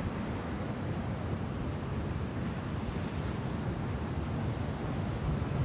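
Steady outdoor background: an even low rumble with a constant high-pitched insect trill over it.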